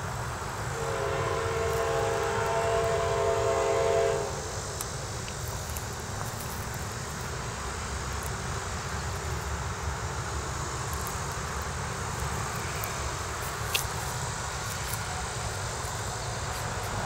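A CSX locomotive's K5LA air horn sounds one steady chord of about three seconds, starting about a second in and cutting off sharply about four seconds in. After it the distant GE AC44CW diesel locomotives of the approaching coal train rumble steadily.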